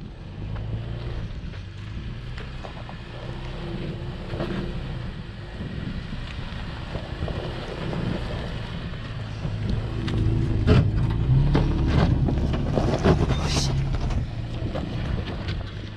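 Toyota 4Runner engine running steadily under load on a steep off-road climb, growing louder about two thirds of the way in, with several sharp knocks and clunks and a brief hiss near the end.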